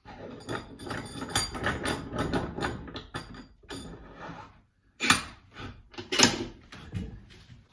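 A quick run of knocks and clattering from work being handled, then two louder short rushes of noise, one about five seconds in and one just after six seconds.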